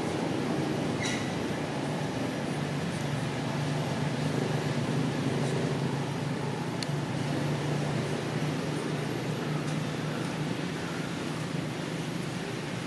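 A steady low drone under a constant hiss, with a few faint clicks.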